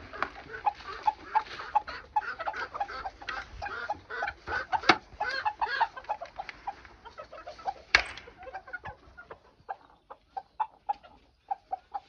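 Several hens clucking in short, busy calls as they crowd onto fresh greens, the excited first rush of feeding; the clucking thins out over the last few seconds. Two sharp knocks stand out, about five and eight seconds in.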